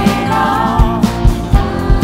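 A stage band playing with a group of voices singing over a steady drum beat of about two strikes a second.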